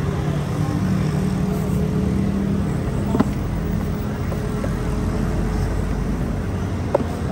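Motor vehicle engine running steadily amid street traffic, with two short sharp knocks, about three seconds in and near the end.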